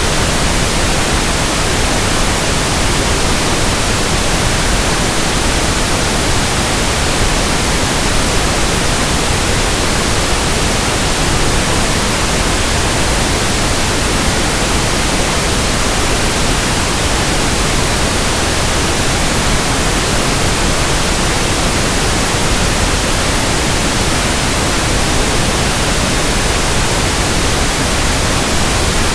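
Pink noise test signal: a steady, even hiss spread across the whole frequency range, played at constant level for tuning an audio system.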